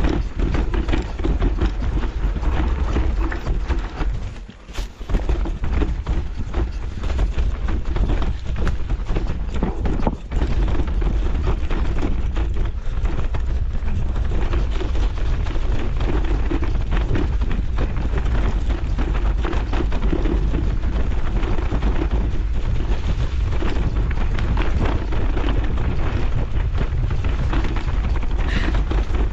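An electric mountain bike riding down a rough dirt trail: continuous tyre and frame clatter with heavy wind rush on the microphone. The clatter dips briefly about four seconds in.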